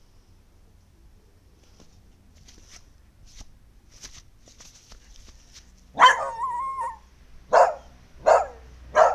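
A beagle barking: one loud bark drawn out into a held, yowling note about six seconds in, then three short sharp barks in quick succession near the end. Faint scuffling sounds come before the barks.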